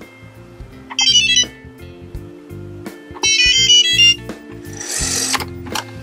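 BOBOT MIN580 mopping robot sounding two short electronic beep melodies, about a second in and again around three seconds in, as its button is pressed to start it. A short hiss follows near the end, over background music.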